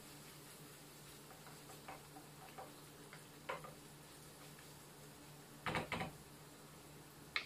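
Wooden spatula knocking and scraping in a frying pan as ground beef is stirred: light scattered taps, then a quick run of louder knocks about two-thirds of the way in and one more near the end, over a faint steady hum.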